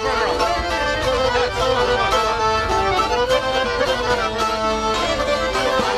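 Live Albanian folk music: çifteli lutes plucking with an accordion, playing a steady instrumental passage.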